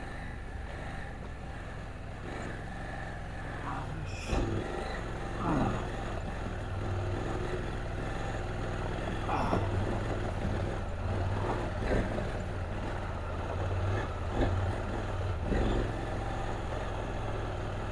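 KTM 790 Adventure's parallel-twin engine running steadily at low revs through slow off-road riding, with several short sounds falling in pitch over it.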